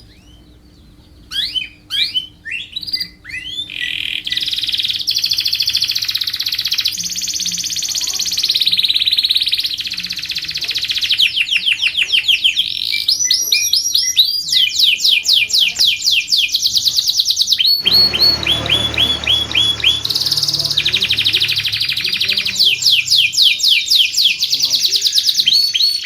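Domestic canary singing a long song. It opens with separate rising chirps, then about four seconds in breaks into continuous fast trills and rolls of rapidly repeated notes. About two-thirds of the way through, a low rumbling noise sits under the song for a few seconds.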